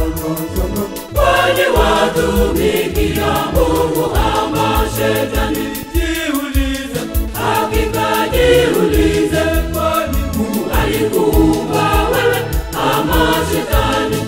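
A mixed church choir of men's and women's voices singing a gospel song over instrumental backing with a steady bass beat.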